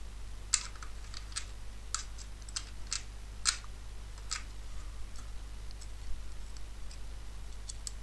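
Small metal clicks of steel tweezers picking up and setting down the code discs and spacers of an Abloy Easy disc-detainer cylinder lock. About a dozen sharp, irregular clicks come in the first four and a half seconds, then only a few faint ticks near the end.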